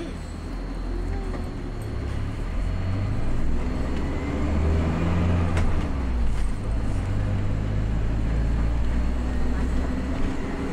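Engine and road noise heard from inside a moving vehicle as it pulls away and gathers speed, getting louder over the first few seconds, then running on steadily.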